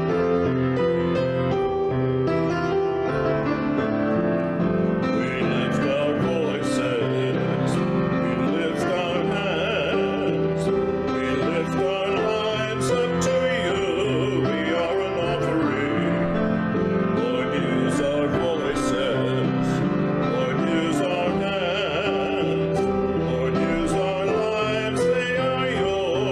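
Hymn played on piano, with voices coming in about five seconds in to sing it over the accompaniment.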